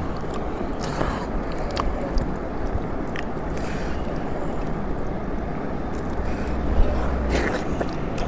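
Close-up eating of beef noodles: chewing and slurping, with a few small mouth clicks and a brief louder cluster near the end, over a steady low rumble.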